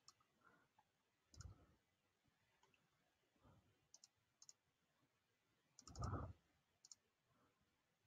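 Faint computer mouse clicks, a handful spread through, with a soft low thud about six seconds in.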